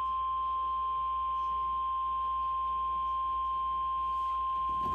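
Emergency Alert System attention tone: a single steady high-pitched tone holding without a break, announcing a severe thunderstorm warning.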